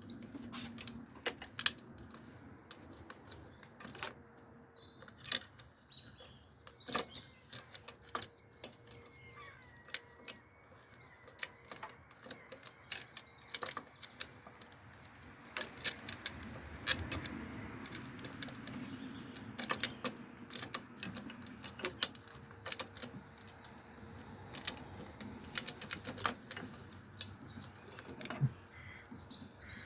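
Irregular light clicks and clinks of tools and parts being handled during hand work on a car's fuel system.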